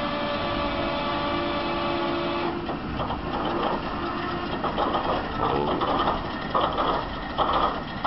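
Diesel engine of a giant mining wheel loader starting up: a steady whine for about two and a half seconds, then rough, uneven bursts as the engine begins to fire.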